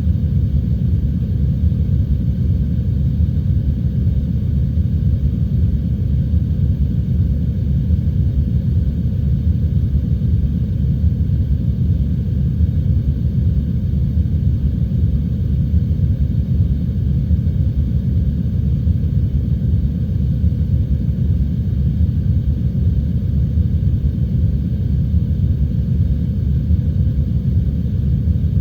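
Steady, dull rumble of heavy rain and wind, deep and even with little crisp patter, unchanging throughout.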